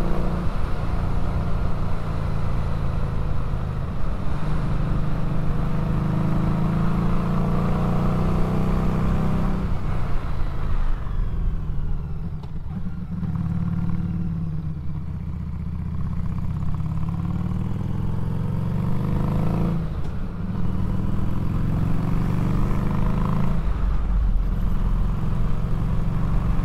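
Harley-Davidson Street 500's V-twin engine pulling the bike along. Its note rises as it accelerates and drops back at several gear changes, and it goes quieter and lower for a few seconds in the middle while the bike coasts, then picks up again.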